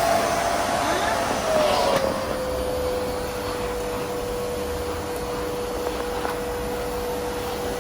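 Hoover vacuum cleaner motor running with a steady whine. About two seconds in the pitch drops, with a faint click, and then holds steady.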